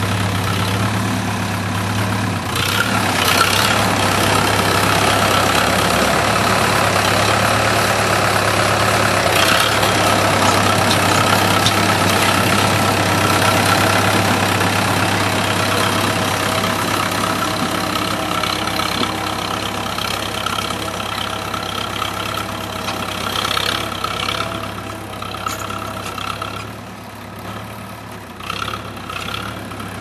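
Fordson tractor engine running, idling briefly and then pulling harder and louder about two and a half seconds in as the tractor pushes snow with its front plough. It eases off and fades somewhat near the end.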